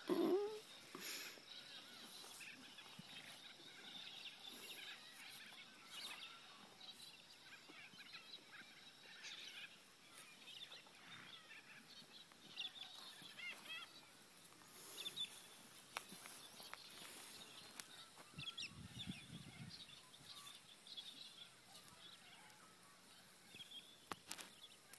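Faint outdoor ambience with birds chirping and calling on and off. A short, louder sound with a gliding pitch comes at the very start.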